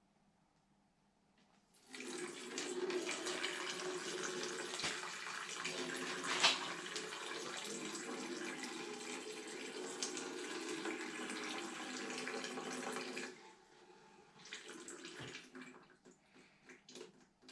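Old coolant, water mixed with oil, pouring out of the drained 1275cc engine into a container: a steady stream starting about two seconds in, running for about eleven seconds, then cutting off, with a few short trickles after.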